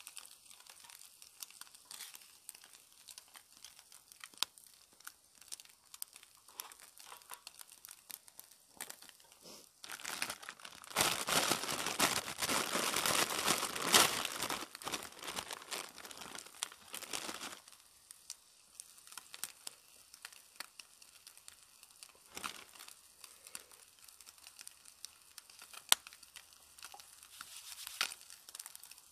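Wood fire crackling in a small folding box stove under a frying pan, with the food in the pan frying. From about ten seconds in, a louder rushing noise comes in and lasts about seven seconds.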